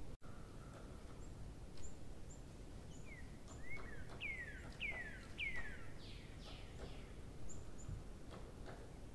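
A bird calling in the background: a run of about five quick whistled notes that each slide downward, in the middle of the stretch, with thin high chirps scattered around them, over a steady low background hum.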